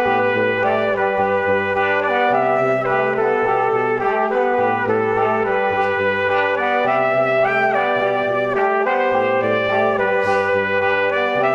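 Background music: an instrumental tune led by brass-like tones, with held chords over a bass line that steps between notes.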